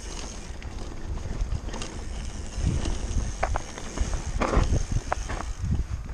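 Mountain bike riding fast down a gravel trail: a steady rumble of tyres over dirt and loose stones, with wind buffeting the microphone. A few sharp clatters from the bike over bumps come about halfway through.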